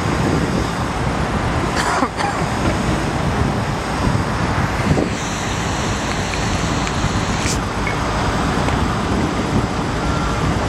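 Steady rumble of trucks and road traffic on a roadworks site, with a few clicks. A vehicle's reversing beeper starts sounding near the end.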